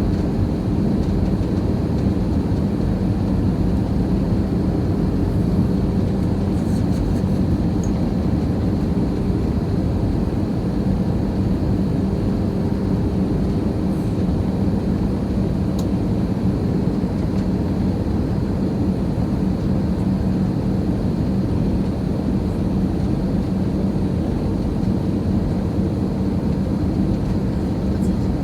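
Steady drone of an aircraft in flight heard from inside the cabin: constant engine and airflow noise with an unchanging low hum.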